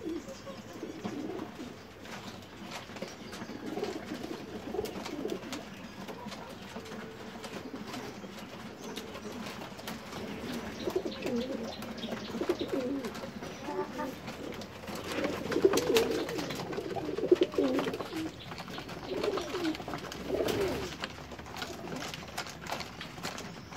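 A flock of racing pigeons cooing, low warbling coos overlapping one another, with scattered sharp taps.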